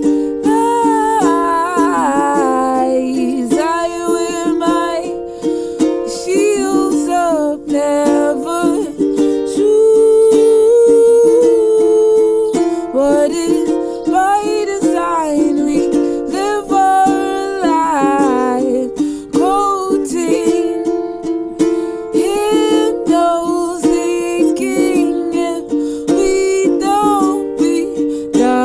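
A solo acoustic song with a plucked string accompaniment and a voice singing wordless, gliding melodic lines, in a small room.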